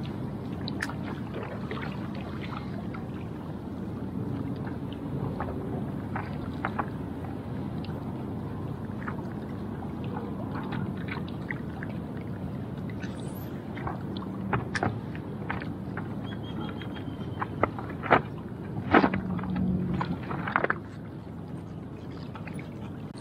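Wind buffeting the microphone over choppy water lapping against a rocky shore, a steady rushing noise. Scattered small clicks run through it, with a few sharper knocks near the end.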